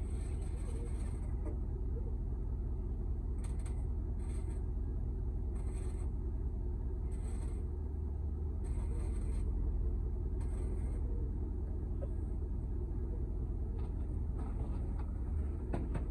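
A steady low rumble, like a running engine, with short faint hissing bursts every second or two.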